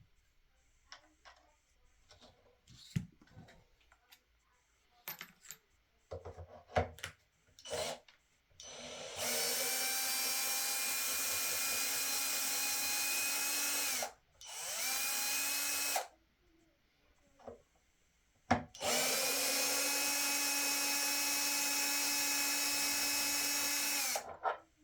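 Electric drill-driver running in three spells, two long ones with a short one between. Each spins up to a steady whine and then stops, as it backs screws out of a loudspeaker cabinet being disassembled. Light clicks and handling knocks come before the first run.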